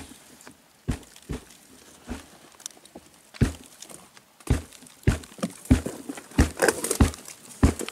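Dull thumps and rustling crackles of people shifting around a rotting log, sparse at first and then coming about one or two a second after about three seconds in, with a louder spell of crackling near the end.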